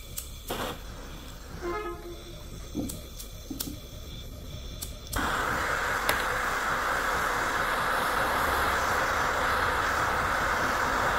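A few light clicks and taps, then about five seconds in a handheld gas torch lights with a sudden, loud, steady hiss of its flame as it heats a wire fishing hook.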